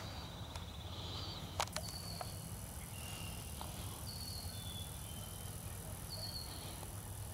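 Woodland birds calling: short high whistled notes, slightly falling, repeated about once a second at two pitches. A single sharp click about a second and a half in, and a faint steady high whine from about two seconds in.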